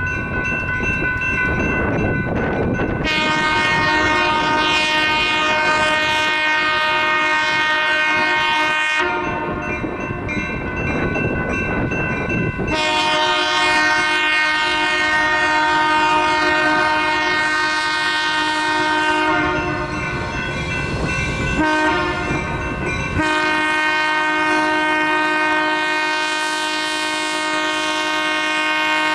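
An approaching locomotive sounds a series of long blasts, several seconds each with short breaks between, as it nears a road grade crossing. Under them, from the start, the crossing's warning bell rings steadily.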